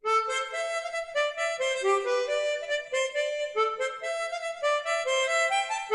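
Background music starting abruptly: a harmonica playing a lively melody of quick-changing notes.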